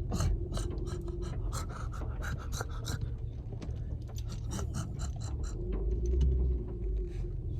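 Rapid, irregular rustling and scraping of a fabric motorcycle cover being grabbed and handled, over a steady low wind rumble on the microphone.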